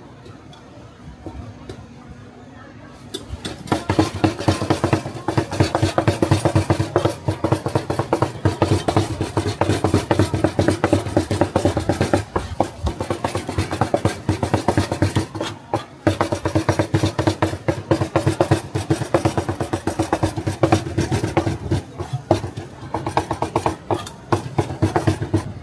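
Cleaver chopping meat on a wooden board in fast, continuous strokes, many a second, with two brief pauses, as the filling for rou jia mo is minced.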